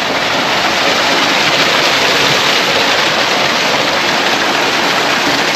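Small waterfall beside the path, rushing water pouring steadily and loudly, swollen by heavy rain.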